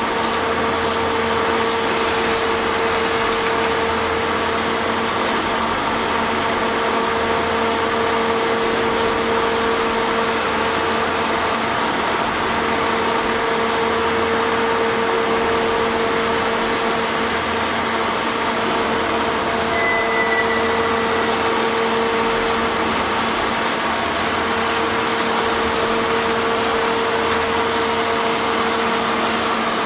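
Railway track-maintenance machinery running steadily, a loud continuous mechanical drone with a fixed hum. Near the end it is joined by a quick series of sharp ticks or knocks.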